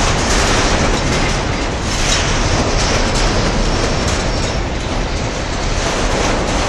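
Empty freight wagons rolling past at close range: steel wheels clattering over the rails in a steady, loud rumble.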